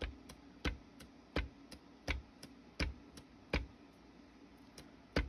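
Light hand taps on the craft work surface and silicone molds, evenly spaced about three every two seconds, stopping about three and a half seconds in with one more tap near the end, over a faint steady low hum.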